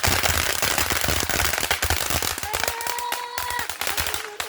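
Firework going off in a dense, continuous run of rapid crackling bangs, many per second. About halfway through, a steady held tone sounds over the crackle for around a second.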